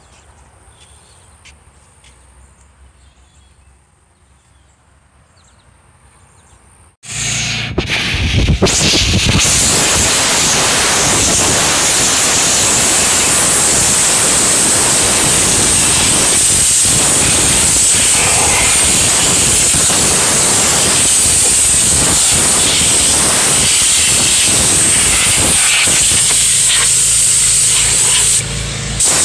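Compressed air blasting from a blow-out tool on a green air hose, used to blow dust out of a car's interior: a loud, steady hiss that starts suddenly about a quarter of the way in and briefly cuts out near the end. Before it, only low background.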